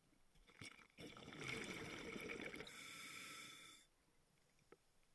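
Scuba diver breathing through a regulator underwater: a bubbling exhalation from about a second in, then a steady hiss of inhalation that cuts off sharply about a second before the end.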